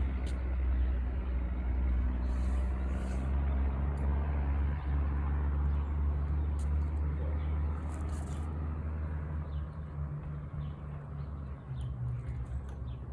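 Steady low motor hum that fades near the end.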